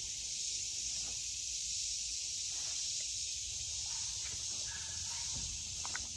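Steady high-pitched insect chorus droning in the woods, with a few faint knocks near the end.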